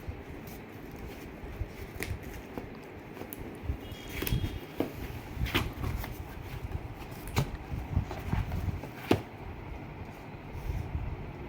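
A gift package being unwrapped and opened by hand: rustling of paper and cardboard with sharp clicks and knocks every second or two.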